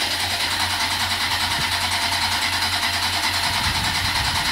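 2007 Kawasaki ZX10R inline-four engine, swapped into a ZX7 frame, being cranked on its electric starter with a steady, regular pulse, cut off near the end without the engine catching. It is a no-start that the owner puts down to fuel delivery from the newly fitted Mazda RX-8 fuel pump, which he now suspects may be wired wrongly.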